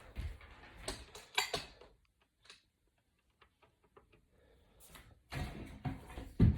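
Handling of an iPad's bare aluminium body on a work surface: a few light knocks and clicks, a near-silent pause in the middle, then rubbing and a firmer knock near the end.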